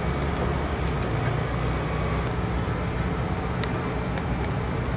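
Steady low mechanical hum under a noisy background, with a few light clicks in the second half.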